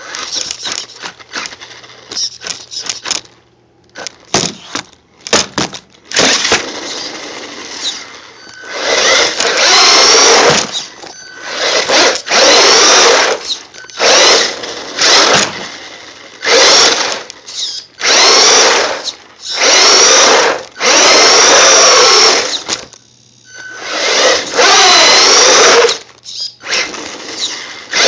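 Brushless electric motor of a Duratrax Evader EXT2 RC truck whining in repeated bursts of throttle, rising and falling in pitch. The bursts are short at first, then longer and louder from about nine seconds in.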